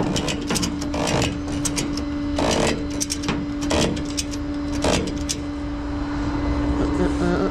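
A vehicle engine hums steadily while several sharp knocks and clanks sound over the first five seconds.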